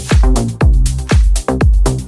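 Electronic dance music with a heavy kick drum about twice a second and a bass line between the beats.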